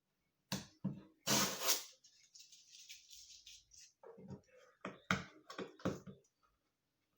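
A cardboard shipping box being opened by hand: a couple of knocks, then a loud rip of packing tape being pulled about a second in, followed by rustling and a run of knocks and bumps as the box is handled.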